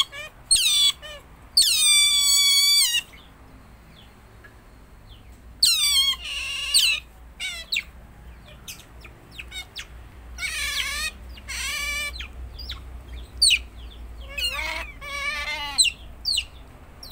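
Pet otter calling: a string of shrill, high-pitched squeals about a second long, with short chirps in between and quieter gaps.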